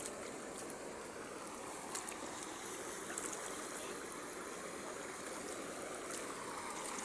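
River water flowing steadily, with a few faint clicks.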